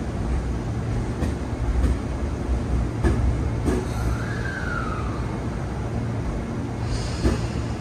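Tobu Railway electric train rumbling steadily, with a few sharp clicks and a short high tone about four seconds in.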